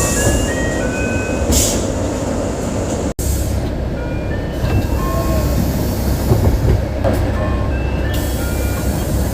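Inside a 2006 Mitsubishi Fuso Aero Midi MK city bus: the diesel engine idles with a steady low rumble while the door chime plays a run of short high notes at changing pitches. A brief air hiss from the pneumatic door comes about one and a half seconds in, and the sound cuts out for an instant about three seconds in.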